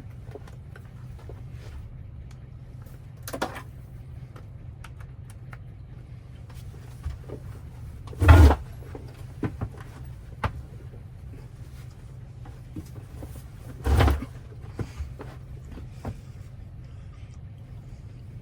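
Light clicks and handling noises over a steady low hum, with two dull thumps, the first about eight seconds in and the second about fourteen seconds in.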